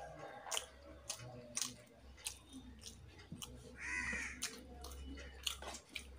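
A crow caws once, about four seconds in. Short soft clicks of chewing and of fingers mixing rice in a steel plate run throughout.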